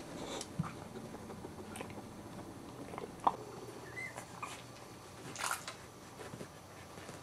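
Young puppies giving a few short, high squeaks and whimpers, a falling one about three seconds in and a rising-and-falling one about a second later, amid soft scuffling and suckling noises and a brief scratchy rustle.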